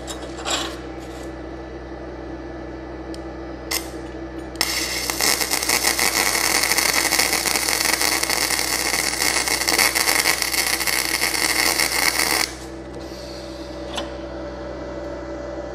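Flux-core MIG welding arc from a YesWelder FLUX-123PRO running gasless flux-core wire: a loud, dense crackling sizzle that starts about four and a half seconds in and stops abruptly about eight seconds later. Before and after it, a steady hum with a few light clicks.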